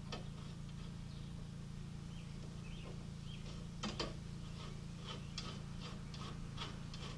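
Faint metal clicks and ticks of a bicycle bottom bracket bearing ring being screwed on by hand around the greased ball bearings, with one sharper click about four seconds in. A steady low hum runs underneath.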